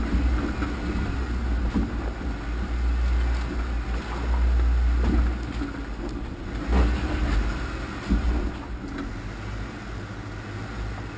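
Off-road vehicle's engine running at low speed while crawling over a rocky trail, with a low rumble and a few knocks and rattles as it bumps over rocks.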